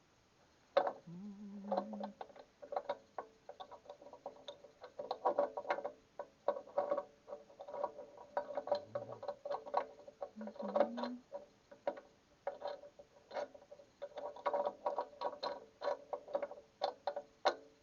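Irregular metal clicks, taps and clinks as a bolt is worked through the holes of a new retaining collar and the shaft of a bale unroller, some strikes ringing briefly.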